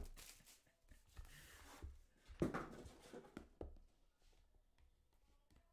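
Faint handling sounds of a cardboard trading-card box: the inner box sliding out of its sleeve, with a few soft knocks and scrapes, the loudest about two and a half seconds in.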